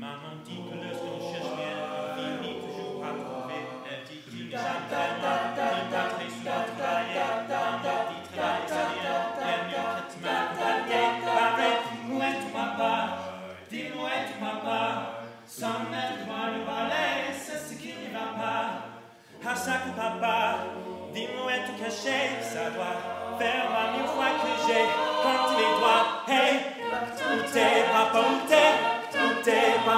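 Unaccompanied a cappella vocal group singing in close harmony: several voices over a low sung bass line, breaking off briefly about four seconds in and again just before twenty seconds.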